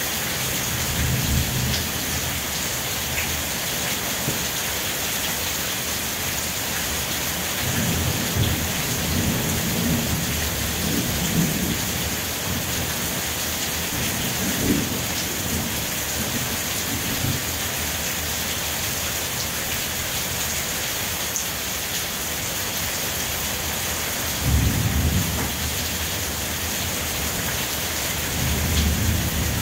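Steady rain, a constant even hiss. Deep low rumbles swell and fade several times over it, strongest in the last few seconds.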